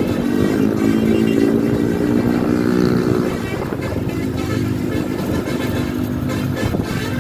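Multi-note Basuri telolet bus air horn playing a stepped tune over a bus engine running. The horn notes are loudest for about the first three seconds, then carry on more faintly.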